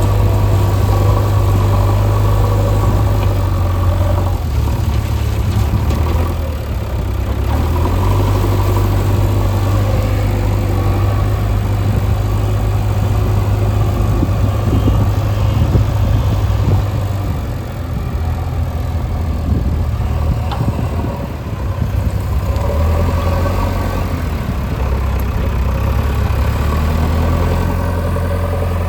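Diesel engine of heavy construction machinery running steadily with a deep hum, easing off briefly a couple of times.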